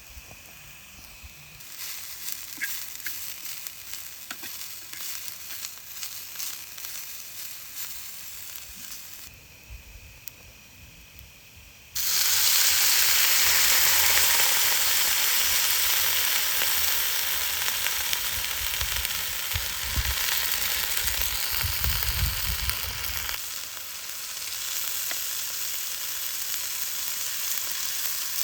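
Food frying in a pan with a steady sizzle. About twelve seconds in, the sizzle jumps suddenly to much louder and stays strong.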